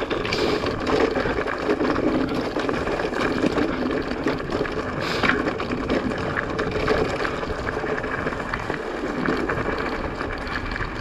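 Mountain bike on the move: tyres rolling over rough trail, a steady run of small rattles and knocks from the bike, and wind buffeting the microphone.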